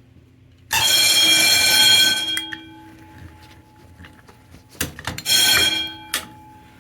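Fire alarm signal of a vintage 120VAC hardwired system sounding in two short loud bursts, the first about a second in and the longer of the two, the second near the end. Each cuts off with a ringing tone fading after it and is followed by a sharp click.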